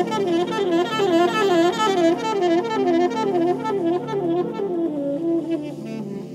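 Saxophone and piano duet in a slow, melancholic neoclassical style. A quick up-and-down melodic figure repeats about twice a second over low held piano notes, and it thins out near the end.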